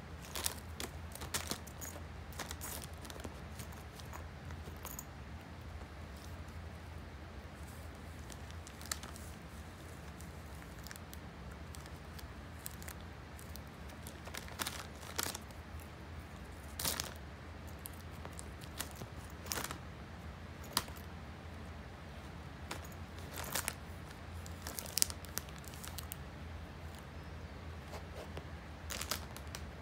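Plastic candy bag crinkling in short irregular bursts as a cat noses and roots into it, over a steady low hum.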